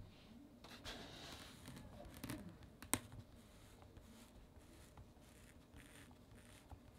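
Faint scraping and rubbing as fingers turn a vinyl figure on its clear plastic stand across a fabric mat, with one sharp click about three seconds in.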